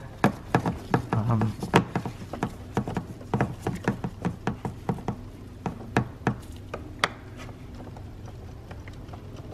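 Irregular clicks and taps of a small hand driver and gloved hands on the 7 mm bolts and plastic housing of a mass airflow sensor as the bolts are unscrewed. The clicks thin out about seven seconds in.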